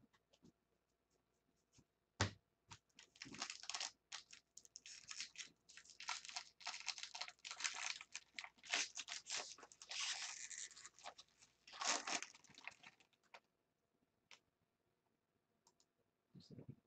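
Foil wrapper of a jumbo baseball-card pack being torn open and crinkled as the cards are pulled out: a sharp snap about two seconds in, then a long run of crackling rustles that stops a few seconds before the end.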